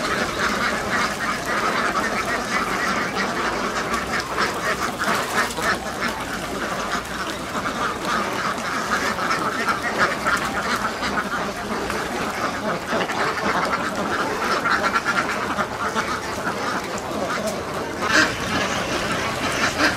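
A large flock of domestic ducks quacking continuously, many calls overlapping with no pause, with a louder burst of calls near the end.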